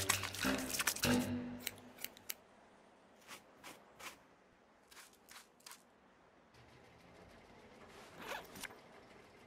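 Music ending about a second in, then short scratchy strokes of a small brush being run through a dog's fur, coming in quick sets of three.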